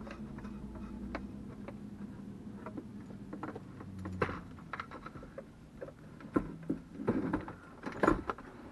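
Handling noise from a CB radio and its metal mounting bracket being worked into place by hand: scattered light clicks, knocks and rattles, thickest and loudest in the last few seconds. A low steady hum runs underneath for about the first four seconds, then drops away.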